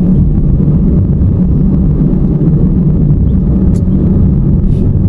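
Car driving at night, heard from inside the cabin: a steady low rumble of engine and tyres on the road, with one brief click about three-quarters of the way through.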